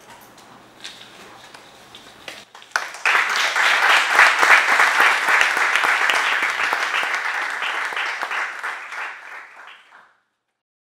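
An audience applauding: the clapping starts suddenly about three seconds in, after a few faint clicks, and gradually dies away near the end.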